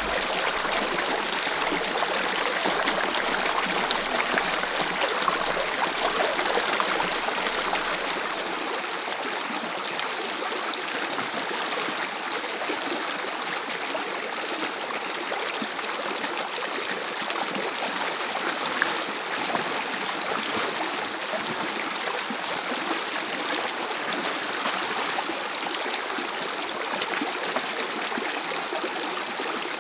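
Small shallow rocky stream running over stones and a little cascade: a steady rush of water, a little louder in the first few seconds.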